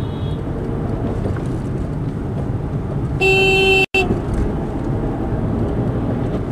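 Steady road and engine noise of a moving car, with a car horn sounding once for under a second a little over three seconds in, cut off sharply.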